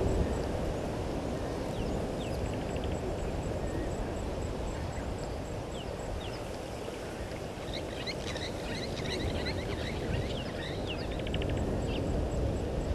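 Wild birds chirping at dusk over a steady low outdoor rumble, scattered calls early on and a quick flurry of chirps from about eight seconds in.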